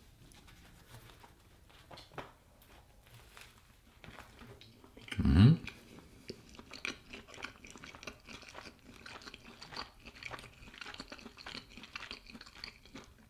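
A person chewing a mouthful of soft bread roll and meatball, with small wet mouth clicks. About five seconds in there is a short, louder vocal sound from the eater.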